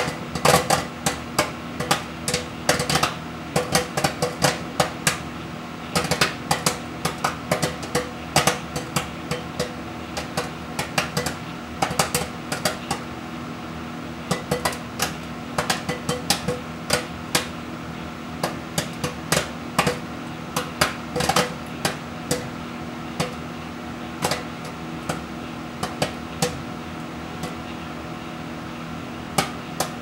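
Jolly Time Healthy Pop microwave popcorn popping in a running microwave oven: many sharp pops over the oven's steady hum. The pops come thick and fast at first, then thin to a few scattered ones toward the end as the bag nears done.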